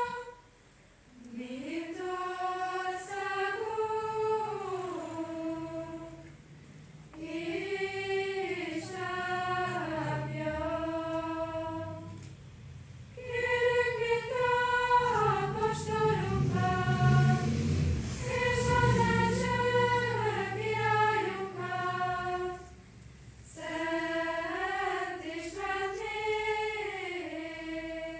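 A girls' chamber choir singing unaccompanied, in phrases separated by short pauses.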